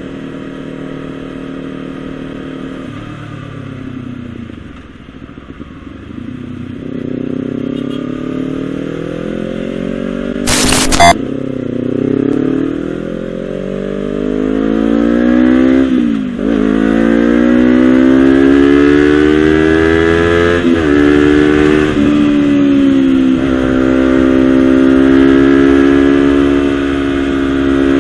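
Honda CBR250RR parallel-twin engine through a Villan SV1 slip-on exhaust. It runs steady, drops back, then climbs in revs, with sudden falls in pitch like upshifts about halfway through and again later, before settling to a steady pull. A short, sharp loud crack comes about ten seconds in.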